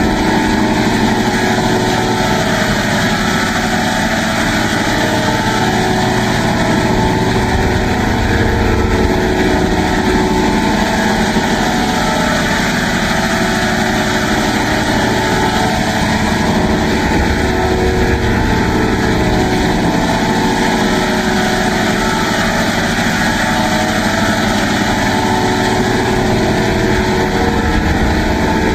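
Looped 'crazy' sound effect: a loud, continuous buzzing, engine-like drone with a fast low pulse, its tone slowly and steadily sweeping as through a phaser.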